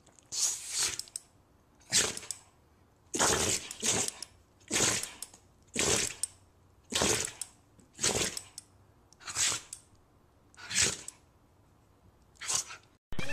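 Dog sneezing over and over: about ten short, sharp sneezes a little over a second apart, with quiet between them.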